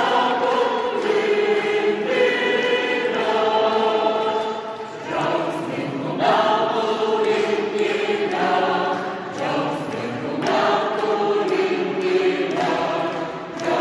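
Large mixed choir of women's and men's voices singing sustained chords, with brief pauses between phrases about five, ten and thirteen seconds in.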